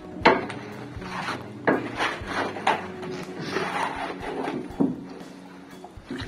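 Steel plastering trowel scraping and knocking against a plastic bucket as gypsum plaster is scooped out. There are several sharp knocks spread through it, with rubbing scrapes in between.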